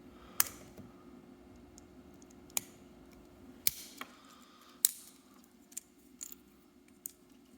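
Sharp, separate clicks and snaps, about five spread over several seconds, as a small plastic part from a smoke detector is prised and cracked open by hand.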